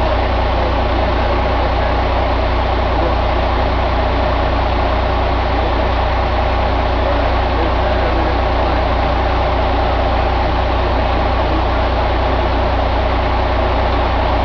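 2003 Caterpillar C12 inline-six diesel engine running steadily at idle.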